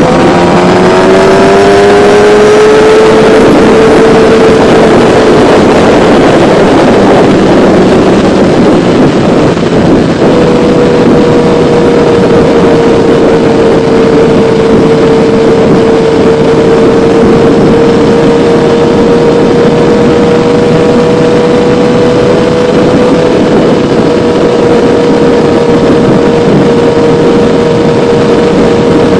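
Kawasaki ZX-10R inline-four sport-bike engine under way at riding speed, heard under loud rushing wind. The engine note drops in pitch right at the start as the bike shifts gear, climbs for a few seconds, then fades under the wind. From about ten seconds in it holds a steady note.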